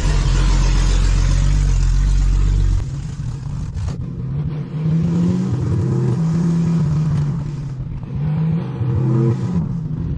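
Vehicle engine heard from inside the cab. It runs with a heavy steady rumble that eases about three seconds in, then rises in pitch several times as the vehicle pulls away and accelerates.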